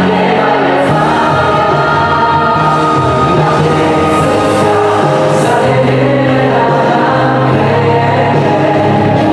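A choir singing with instrumental accompaniment, a continuous stretch of music with held, shifting notes.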